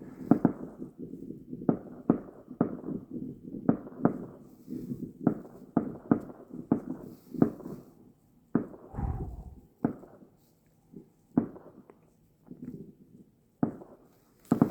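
Distant fireworks exploding: a rapid, irregular run of bangs, each with a short echoing tail, thinning out in the second half.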